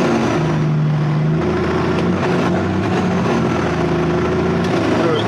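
Heavy semi truck's diesel engine running, its pitch stepping up and down as the revs change.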